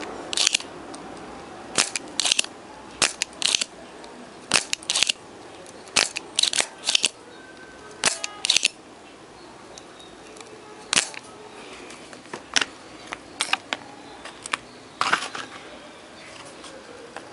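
A series of sharp clicks, many in quick pairs, about twenty in all, over a faint steady hiss.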